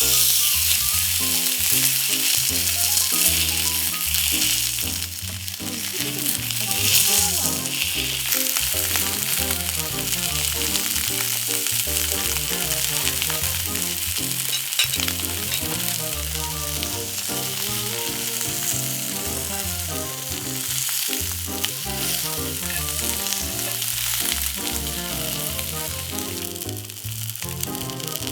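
Background music over a steady sizzling hiss.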